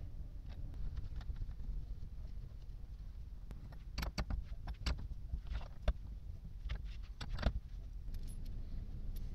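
Steel combination spanner clicking against the nut on a water pump motor's shaft as it is tightened, in two bursts of quick metallic clicks a few seconds apart, over a low steady rumble.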